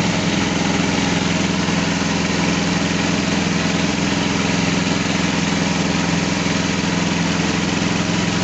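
KD 550 HM mini rice milling machine running steadily with a constant mechanical drone while it mills rice, turning out fine, soft bran.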